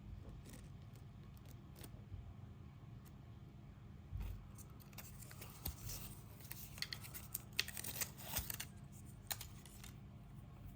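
Cable packaging being handled and unwrapped: light rustling, crinkling and small clicks, busiest from about five to nine seconds in.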